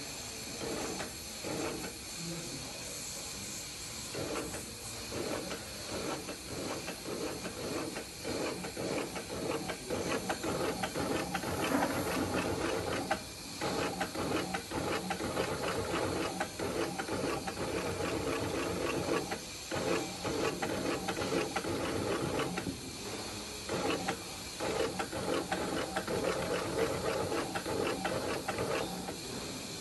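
Industrial sewing machine stitching through a suede boot upper, running in fast, even stitching runs that stop briefly a few times, over a steady hiss.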